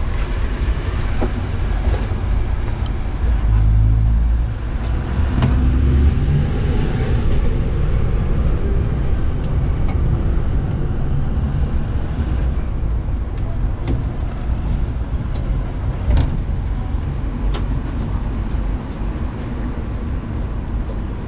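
A1 class tram running along street track, heard from inside the rear cab: a steady low rumble of wheels and running gear, heaviest a few seconds in, with scattered sharp clicks and knocks.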